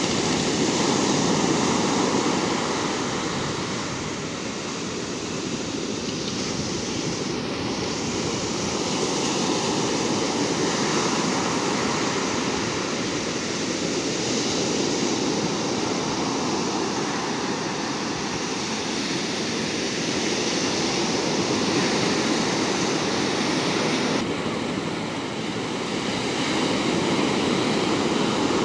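Ocean surf breaking and washing up a sandy beach, a steady rush that swells and eases as each wave comes in.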